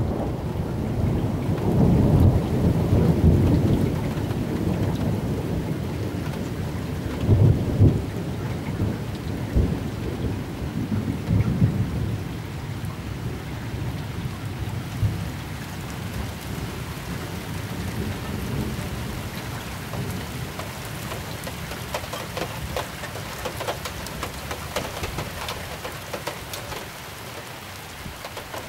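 Thunderstorm downpour: steady heavy rain with rolling thunder rumbling through the first half, swelling several times and then dying away. The rain continues, with individual drops pattering more clearly near the end.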